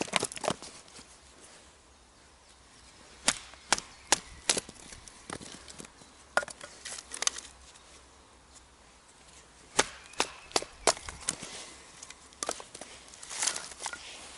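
Wood being split with a large fixed-blade bushcraft knife: groups of sharp wooden knocks and cracks, the strikes about half a second apart, with short pauses between the groups.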